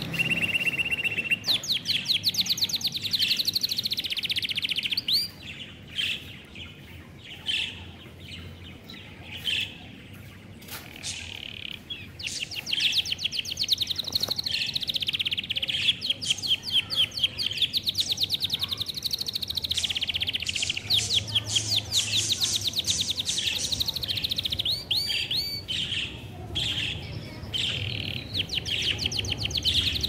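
Budgerigars chirping and warbling in fast trains of high chirps. The chatter thins out a few seconds in, then picks up again and runs on.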